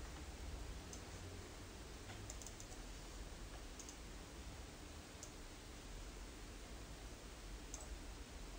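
Faint computer mouse button clicks, single clicks and one quick cluster of three or four, as desktop windows are opened and files dragged, over a steady low hum.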